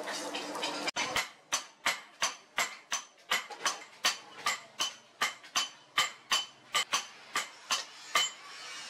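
Hand hammer striking a red-hot steel cleaver blank on an anvil: a steady rhythm of ringing metal blows, about three a second, starting about a second in.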